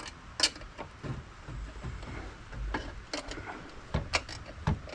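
Scattered clicks and knocks of hand tools and metal parts being handled in a truck's engine bay, over a low rumble.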